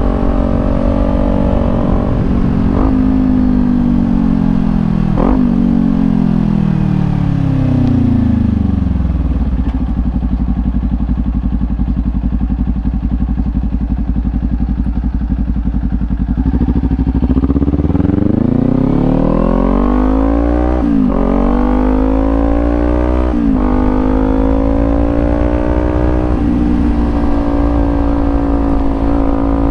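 Kawasaki Ninja 400's parallel-twin engine through a Leo Vince slip-on exhaust. The bike slows with the engine note falling through downshifts and idles for several seconds. It then pulls away, revving up through two upshifts, and settles into a steady cruise.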